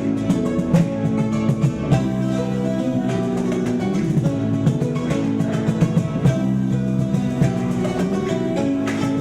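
Music led by a plucked acoustic guitar, with quick picked notes over sustained chords.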